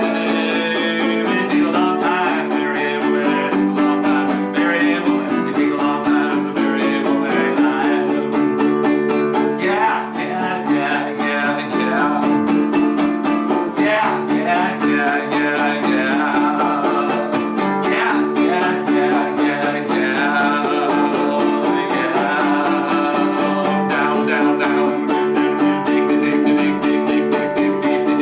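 Instrumental music on a plucked guitar, a steady run of quickly picked notes with no singing.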